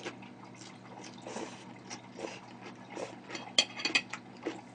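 Close-miked wet chewing and lip-smacking of a person eating, with a quick cluster of louder clicks a little past halfway. A faint steady electrical hum sits underneath.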